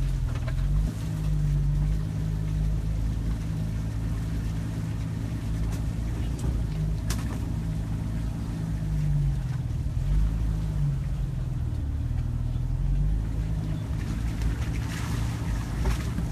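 Car engine running at low speed, heard from inside the cabin, its pitch rising and falling a few times with the throttle over a steady road rumble.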